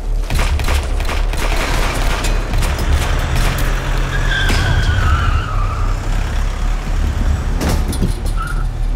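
Film action-scene sound mix: a car driving fast through an underground car park, its engine a low rumble, with a falling squeal of tyres in the middle. Sharp bangs come near the start and again near the end.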